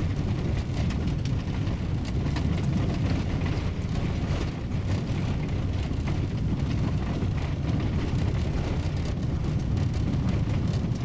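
Car driving along a rural road, heard from inside the cabin: steady engine and tyre noise.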